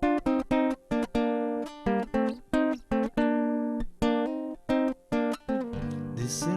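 Acoustic guitar playing an instrumental passage between sung verses of a folk song, a run of sharp strummed and plucked chords about three a second. Near the end a deeper bass line and fuller accompaniment come in.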